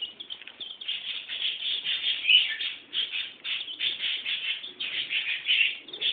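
A group of domestic chicken chicks peeping continuously, many short high cheeps overlapping with no break.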